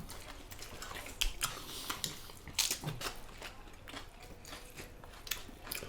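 Close-up eating sounds: chewing and biting into deep-fried crispy pork leg, with scattered soft crunches and wet clicks of the mouth.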